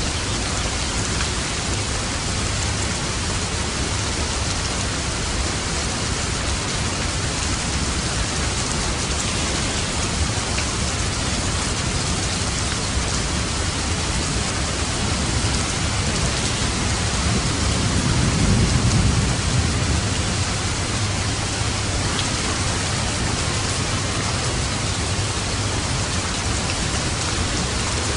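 Steady heavy rain falling on a roof, with a low rumble of thunder swelling and fading a little past the middle.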